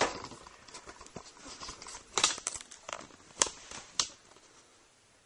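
Handling noise from a camera on a tripod and cardboard packaging being moved about: a sharp click at the start, then scattered short knocks and clicks, several of them close together around the middle. The last second is quiet.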